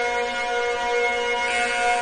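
Outdoor tornado warning siren sounding a steady tone during a test. Several pitches are held together without rising or falling, and the higher notes swell and fade every second or so.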